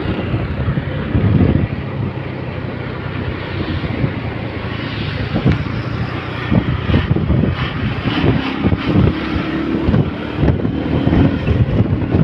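A vehicle engine humming steadily while on the move, with wind buffeting the microphone.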